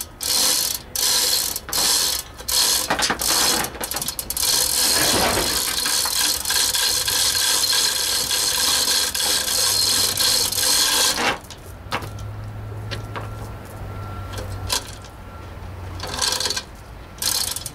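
Ratchet mechanism clicking rapidly in short bursts, then a continuous run of about seven seconds that stops abruptly. After that it goes quieter, with a couple more short bursts near the end.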